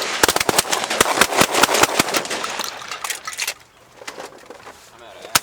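A volley of shotgun fire from several hunters at once, with many shots overlapping in quick succession for about three and a half seconds, then a single shot near the end.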